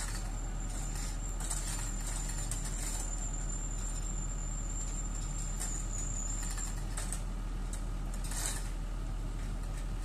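Steady low mechanical hum with a thin high whistle that stops about seven seconds in.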